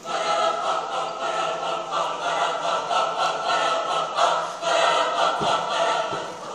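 Mixed choir of men's and women's voices singing a cappella, many voices together in a lively rhythmic passage, with a short break about four and a half seconds in.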